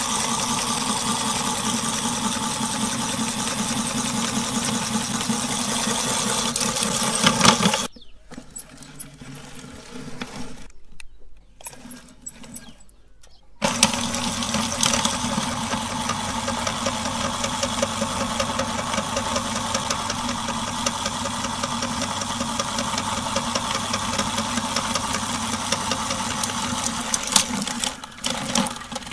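Belt-driven meat grinder powered by an electric motor, running steadily while it grinds a rubbery Stretch Armstrong toy. It stops about eight seconds in and starts again a few seconds later, running on until near the end.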